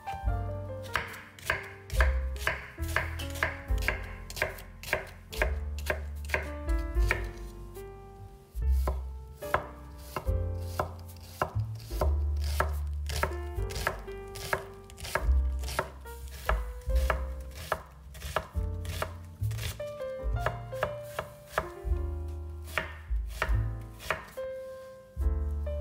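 Knife chopping food, a fast run of sharp strikes at about three a second, pausing now and then.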